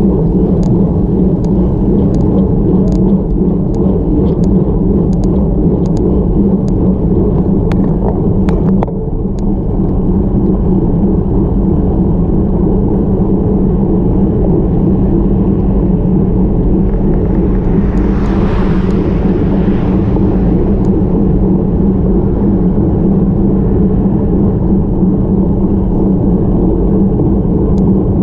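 Steady wind rumble and road noise on a road bike's handlebar-mounted action camera while climbing. Light ticks come about every three-quarters of a second and stop about nine seconds in. A brief hiss swells up and fades about two-thirds of the way through.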